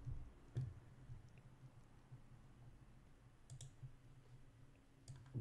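A few sharp computer mouse clicks, including a quick double click about three and a half seconds in, over faint room hum.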